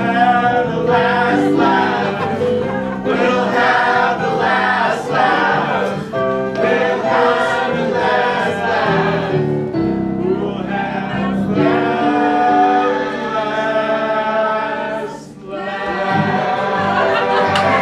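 Improvised song: several voices singing over keyboard accompaniment, with held chords under the melody and a short break about three-quarters of the way through.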